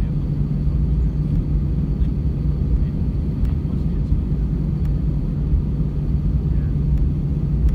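Airbus A320 cabin noise while taxiing: the jet engines give a steady low rumble with a constant hum, heard from inside the cabin beside the wing.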